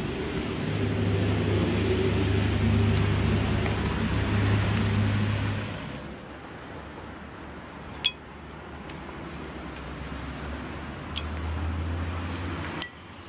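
A steady low rumble for about the first six seconds, then quieter, with a handful of sharp clinks of icicles being tapped by hand, the loudest near the end.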